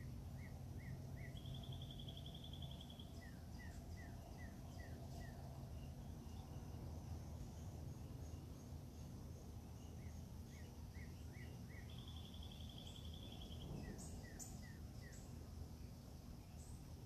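A songbird singing twice, about ten seconds apart. Each song is a quick run of short notes, then a buzzy trill, then a string of falling notes, over a steady low hum.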